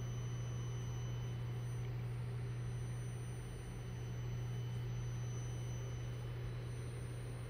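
Steady low electrical hum from the high-voltage coil driver lighting a UV tube through a single wire: one deep unchanging tone with a faint high whine above it.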